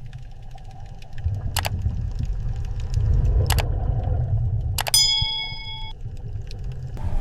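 Low, steady rumble broken by three sharp clicks. The last click, about five seconds in, is a metallic clang that rings for about a second.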